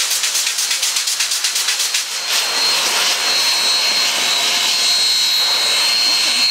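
Union Pacific 844 steam locomotive venting steam. For the first two seconds there is a rapid rhythmic hissing pulse, about five a second. After that comes a loud, steady hiss of escaping steam with a thin whistling tone in it.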